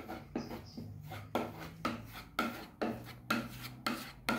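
Metal putty knife scraping across a wooden tabletop as it presses wood filler into the joint gaps, in short strokes about twice a second.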